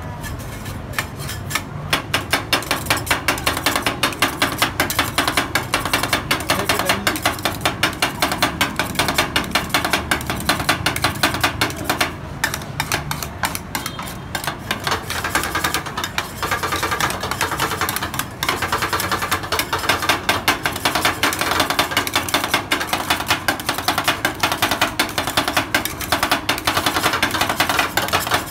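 Two steel spatulas chopping rapidly on the metal cold plate of a rolled ice cream pan, a fast, steady run of clacks as fruit is chopped into the freezing ice cream mix.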